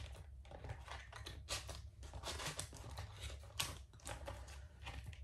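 Faint, irregular rustling and light clicks of plastic kit packaging being handled: bags of small plastic pixels and pixel plates.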